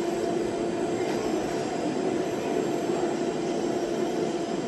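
Steady electric hum of an MRT train, one constant low droning tone over a rumbling background, holding even without starts or stops.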